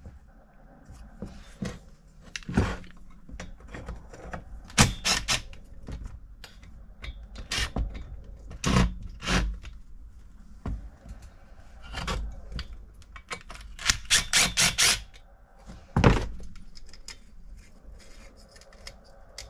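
Irregular clicks, knocks and clatter of metal chainsaw-engine parts and hand tools being handled on a workbench during a teardown, with a few quick rattling runs of clicks and sharper knocks about five seconds in and again near the end.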